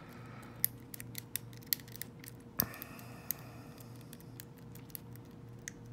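Light, irregular metallic clicking and scraping of a lock pick being rocked over the pins of an American Lockwood pin-tumbler cylinder held under light tension with a tension wrench, with a few sharper clicks among them.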